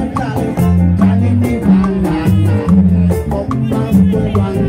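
Live calypso band playing, with congas struck by hand close by over a bass line with low held notes, keyboard and a steady beat.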